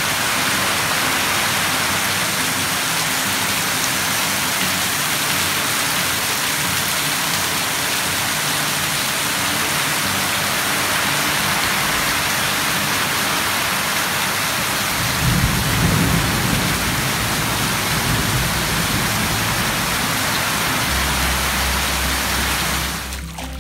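Heavy rain pouring down steadily and splashing into puddles on a waterlogged lawn. About two-thirds of the way through, a low rumble of thunder rises over the rain.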